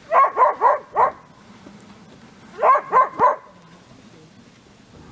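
A dog barking: a quick run of four barks, then three more about two seconds later.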